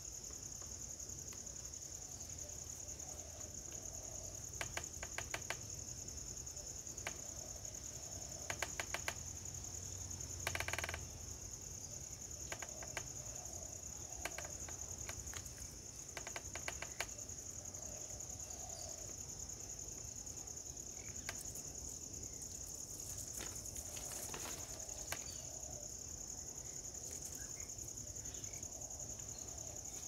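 A steady, high-pitched chorus of crickets, joined by scattered clusters of short sharp clicks and a brief louder burst about ten and a half seconds in.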